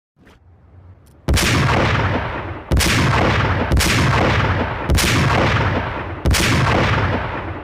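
Steyr SSG 69 PII sniper rifle firing five shots about a second apart, each with a long echoing tail that overlaps the next.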